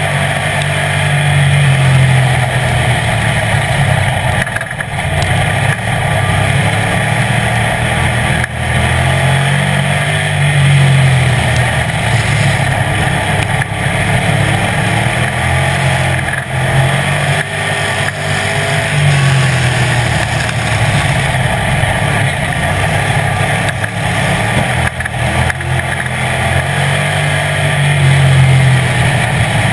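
Street stock race car's engine at racing speed, heard from inside the car, its revs climbing and falling in a repeating cycle about every eight to nine seconds as it laps a dirt oval.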